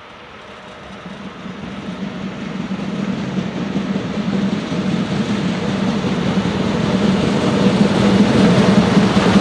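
A train approaching, its steady low drone and running noise growing steadily louder.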